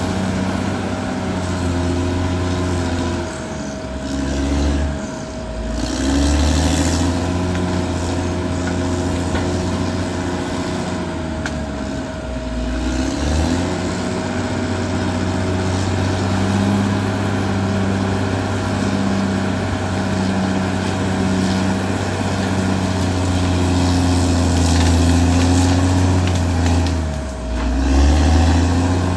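Caterpillar D6R XL bulldozer's diesel engine working, its speed sagging and recovering three times as load comes on and off, with a steady high whine throughout.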